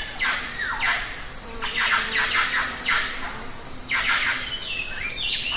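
Birds calling: a busy chatter of harsh, squeaky calls, many of them sweeping down in pitch and overlapping one another.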